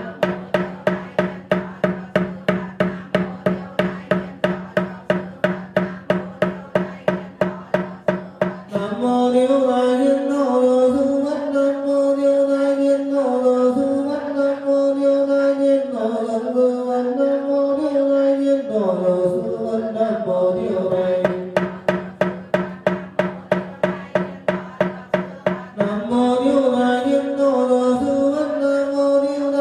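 Buddhist sutra chanting: voices recite in unison to a wooden fish (mõ) struck quickly and evenly, about four strokes a second. The strokes stop after about nine seconds while the voices hold long, level tones, then return for several seconds after the middle before the held tones come back near the end.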